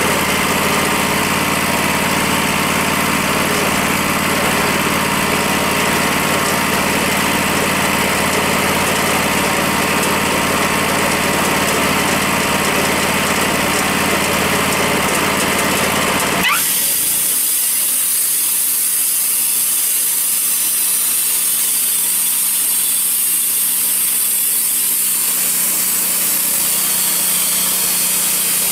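Wood-Mizer LT40 band sawmill's engine idling steadily. About two-thirds through, a short rising tone, then the sound abruptly changes to a high, steady hiss as the engine is throttled up and the band blade engaged, the saw head running toward the log.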